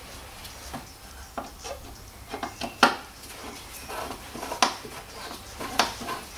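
Sharp metallic clinks and taps from a T20 Torx screwdriver and its screws being worked to take out the screws that hold a car's rear light cluster. Smaller ticks come first, then three louder clicks in the second half.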